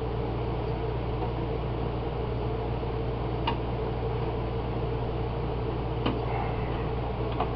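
Steady low machine hum in the workshop, with a few light metallic clicks as a spoon bit is fitted into a lathe's tailstock drill chuck.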